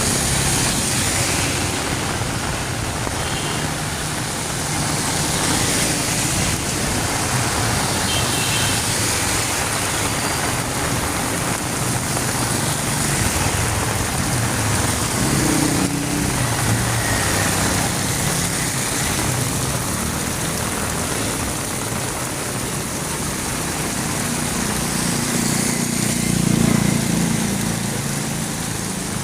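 Heavy rain hissing steadily on a city street, with motor vehicles passing on the wet road. One vehicle passes loudest near the end.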